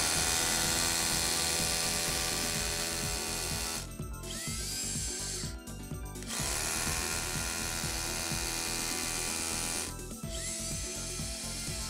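Makita HR183D 18V cordless SDS-Plus hammer drill hammer-drilling a 3.4 mm pilot hole sideways into concrete, held in one hand. It runs for about four seconds, stops and winds down, then drills again for about three and a half seconds before winding down once more.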